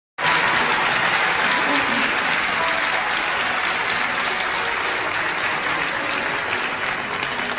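Concert audience applauding, starting abruptly and slowly dying down toward the end.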